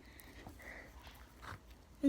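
Faint wet squishing of sticky glue-and-laundry-detergent slime being mixed by hand, with a few soft sticky clicks and a slightly louder squelch about one and a half seconds in.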